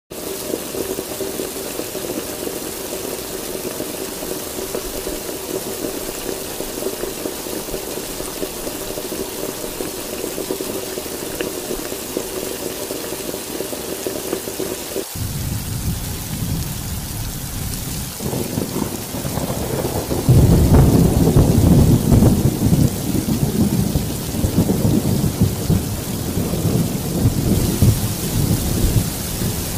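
Heavy rain falling steadily, with a faint steady hum under it for the first half. Halfway through the sound changes abruptly. A few seconds later a long, low thunder rumble builds, peaks, and rolls on to the end.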